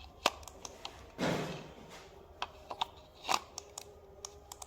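Small plastic clicks and a short scrape from handling a Dell wireless mouse as an AA battery is fitted into its battery compartment. Scattered sharp clicks, with a brief scraping rustle about a second in.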